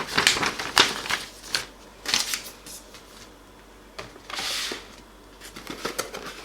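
Packaging being handled during an unboxing: a run of light clicks and paper-and-plastic rustles, a brief soft sliding rustle about two thirds of the way through, then a few more small clicks.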